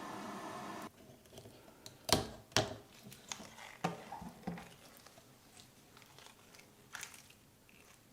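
Nano tape being handled close to the microphone: scattered sticky crackles and squishy smacks, the loudest two about two seconds in. Before that, a steady hum cuts off about a second in.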